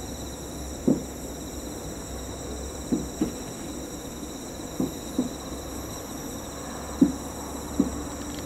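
Aerial firework shells bursting about 3 km away, heard as dull, low booms every second or so, seven in all. Behind them is a steady, high-pitched chirring of insects.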